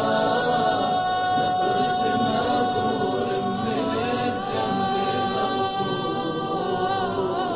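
An Arabic nasheed in praise of the Prophet Muhammad, sung by a chorus of voices. The voices hold one long note between sung lines, then break into a wavering ornament near the end.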